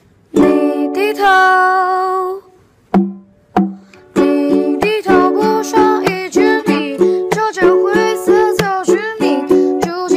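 Background music led by a ukulele: a long held opening note, then a steady run of plucked notes from about four seconds in.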